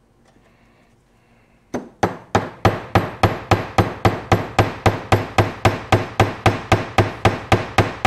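Small plastic-faced hammer tapping a brass door-hinge bushing into its bore. It starts a couple of seconds in with even, light taps, about three a second, seating the bushing without damaging it.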